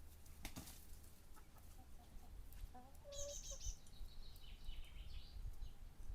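Faint chickens: short low clucks about three seconds in, then about two seconds of high, quick chirping calls. A single knock comes about half a second in.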